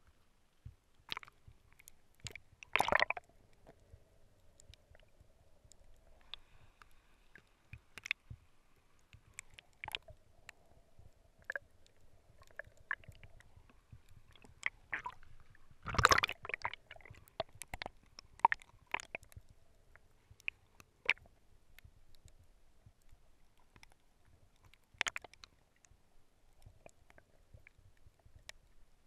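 Water sloshing and bubbling against a camera held underwater at the surface, with many scattered crackling clicks and two louder splashy bursts, a few seconds in and about halfway. A faint steady hum runs underneath.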